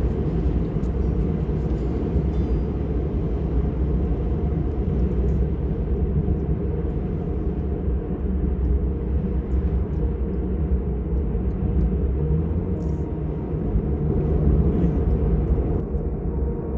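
Car driving at a steady pace: a continuous low rumble of engine and road noise.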